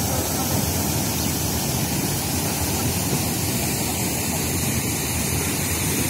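Muddy floodwater steadily rushing and pouring down over a collapsed, eroding earthen bank.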